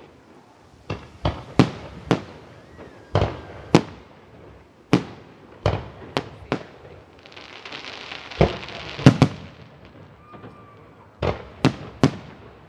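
Fireworks exploding: a dozen or more sharp bangs at uneven intervals, some in quick pairs, with a stretch of hissing crackle about seven to nine seconds in.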